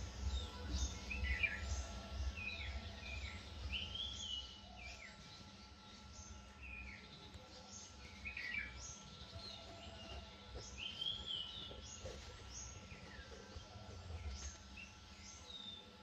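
Several wild birds chirping and calling over one another in short, repeated chirps that slide up and down in pitch, with a low rumble through the first few seconds.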